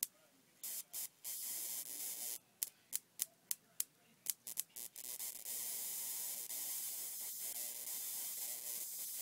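High-voltage sparks from a flyback transformer driven by a 100-watt CFL ballast: a series of sharp snapping sparks and short crackling bursts, then a steady hissing arc for the last four seconds or so.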